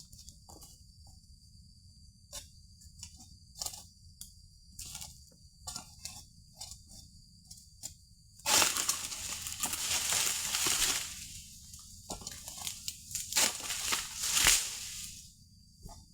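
Oil palm fronds being cut with an egrek pole sickle: scattered sharp cracks and snaps, then two long rustling crashes of leafy fronds, the first about eight seconds in and the second about four seconds later.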